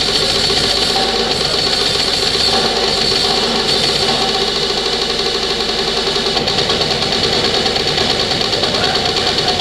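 Metal drum solo on a full drum kit: a dense, unbroken stream of rapid bass-drum strokes under a steady wash of cymbals.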